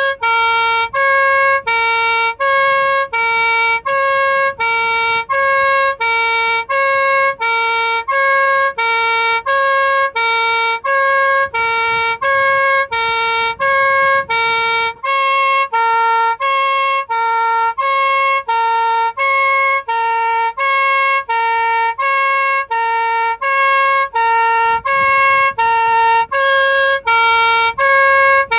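Two-tone police horn of a Jaguar police car, heard from inside the car, alternating steadily between a high and a low note about once a second. There is a brief drop-out about halfway through.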